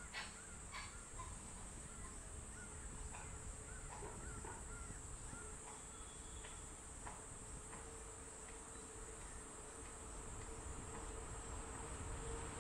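Faint trackside ambience: a steady high insect drone with birds chirping and calling now and then. A low steady hum grows toward the end as a train approaches.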